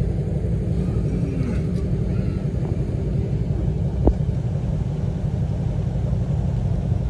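Lowered cars creeping slowly along the lot, with a steady low rumble and a single sharp knock about four seconds in.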